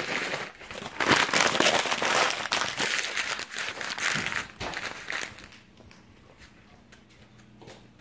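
A McDonald's takeout bag crinkling and rustling as it is handled and crumpled to be thrown away, stopping about five seconds in and leaving a faint low hum.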